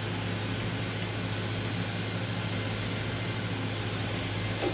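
A powered-up Fadal VMC 5020A vertical machining center gives a steady electrical hum with a fan-like hiss. A brief light clatter comes near the end.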